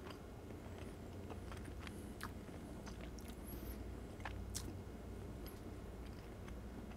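A man chewing a mouthful of tender slow-cooked pork spare rib with his mouth closed: faint, scattered wet clicks and smacks, close to a clip-on microphone.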